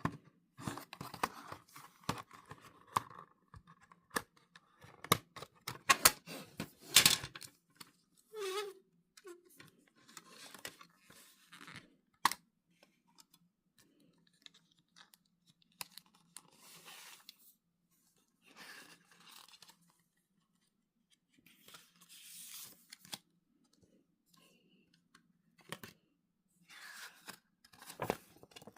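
Unboxing handling noise: plastic packaging tearing and crinkling, with sharp clicks and taps, in irregular bursts that are densest in the first eight seconds.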